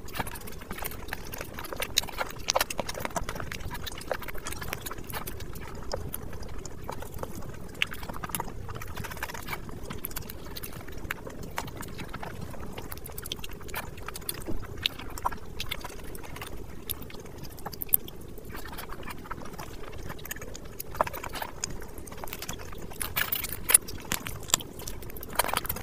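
Close-miked eating sounds from a person eating rice and curry by hand: wet chewing, lip smacks and irregular mouth clicks, with squelches as the fingers mix rice and gravy on the plate.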